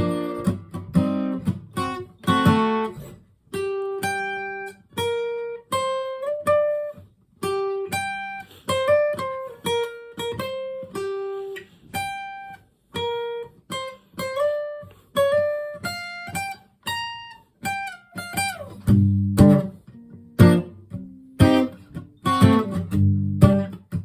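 Acoustic guitar instrumental break: a few strummed chords, then a picked single-note melody for most of the stretch, with strumming coming back about three-quarters of the way through.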